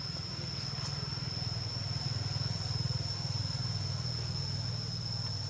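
A small engine running steadily at idle, a low pulsing rumble that swells slightly midway, with a steady high-pitched whine over it.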